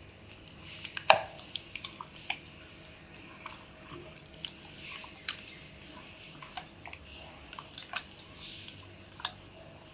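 A hand squelching and squishing raw chicken pieces through thick wet egg-and-flour batter in a steel bowl, with irregular soft wet clicks and smacks.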